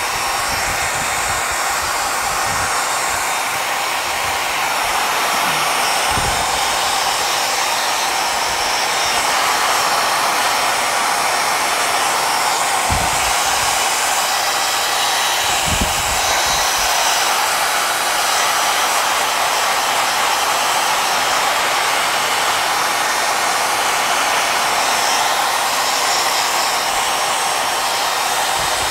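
Handheld hair dryer blowing steadily at a constant pitch, drying fresh paint.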